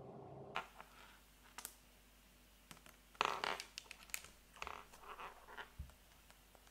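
Hands handling things on a desk: soft clicks and short rustles, with a louder scratchy rustle a little over three seconds in. A steady low hum cuts off about half a second in.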